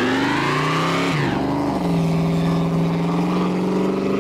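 Car engine revving hard during a burnout, a single rear tyre spinning and smoking on the pavement: the one-wheel 'tire fire' of an open differential. The engine pitch climbs, drops sharply about a second in, then holds high and steady.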